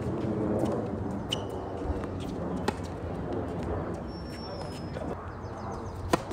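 Tennis ball hit by rackets: a few sharp pops during a rally, then a louder, sharper hit about six seconds in as a serve is struck.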